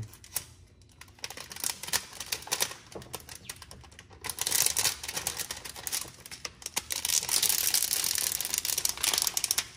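Thin plastic window tint film crinkling and crackling as its clear protective top layer is peeled off by hand. Scattered crackles at first, then a dense, continuous crackle from about halfway through.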